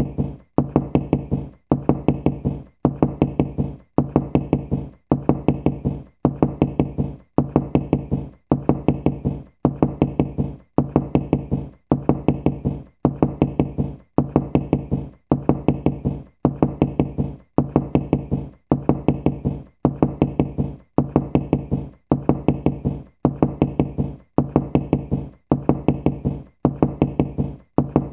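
Knocking in quick bursts of several knocks each. The bursts repeat evenly about once a second with short gaps between them, as a looped knocking sound effect.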